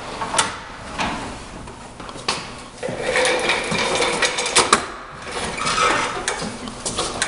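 Computer keyboard typing and mouse clicks: scattered clicks early on, then a denser run of rapid key taps from about three seconds in.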